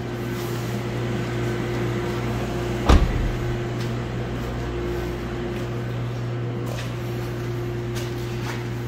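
A steady mechanical hum, with a single dull knock about three seconds in.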